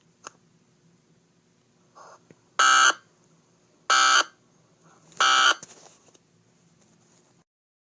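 Three short bursts of harsh digital data tones from an Emergency Alert System SAME signal, each under half a second and about a second and a half apart. This is the end-of-message code that closes an EAS alert.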